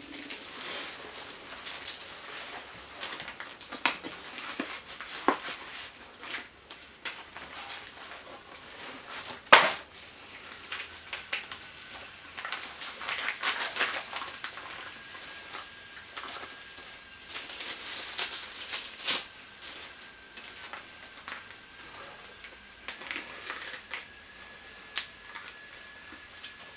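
MRE plastic and foil ration pouches crinkling and rustling as they are handled and opened, with one sharp snap about ten seconds in. A faint steady high tone runs under the second half.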